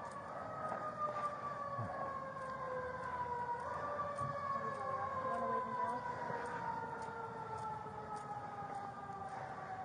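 Emergency vehicle siren approaching: one long wail that falls slowly in pitch through the whole stretch, jumping up briefly about three and a half seconds in before falling again.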